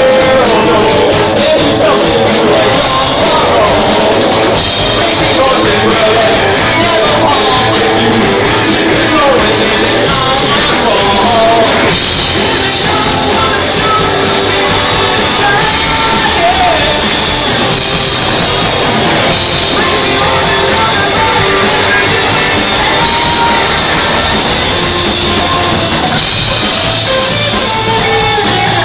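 Loud rock music with singing over electric guitar and drums.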